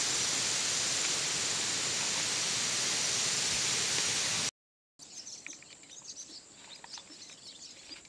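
Steady rushing hiss that cuts off abruptly about four and a half seconds in; after a short gap, faint high chirps of birds and insects.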